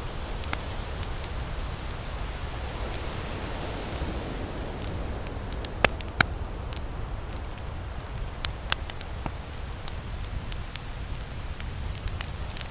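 Campfire crackling, with scattered sharp pops, the loudest two close together about six seconds in, over a steady low rumble.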